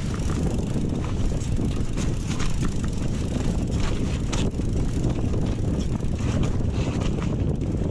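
Mountain bike rolling over a rough trail, with wind buffeting the microphone and scattered clicks and rattles from the bike and the ground under the tyres.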